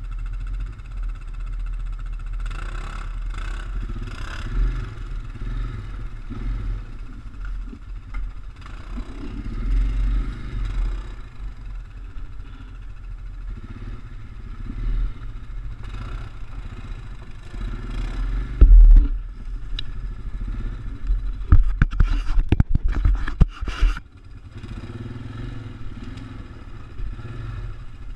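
ATV engine running at low speed, a steady low rumble that swells now and then. About two-thirds of the way through comes a run of loud knocks and scrapes, the loudest sounds here.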